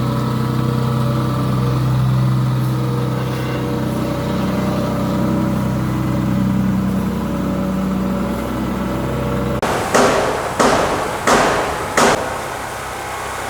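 Engine of a sand compactor running steadily while the sand floor is compacted. About two-thirds of the way in, the sound changes abruptly to four loud, short crashes, roughly two-thirds of a second apart.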